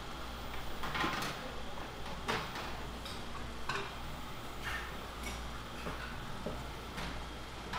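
Metal tongs clinking and scraping against stainless steel bowls as vegetable toppings are picked up and dropped into a bowl of rice. There are several light clinks about a second apart over a steady low hum.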